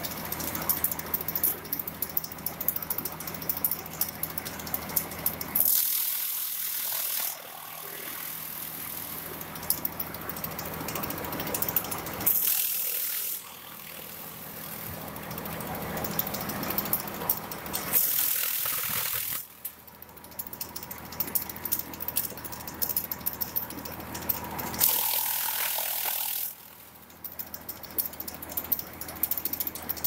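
Chaff cutter running and chopping corn stalks: a steady machine hum under rapid clicking and rattling as the stalks are cut, with four loud hissing rushes of a second or so, about six seconds apart.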